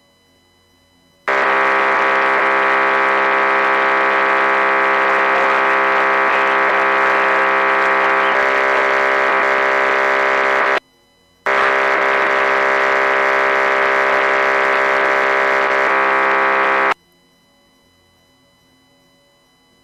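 A ship's horn sounding two long, steady blasts of one deep pitch. The first lasts about nine seconds, and after a short pause the second lasts about five seconds.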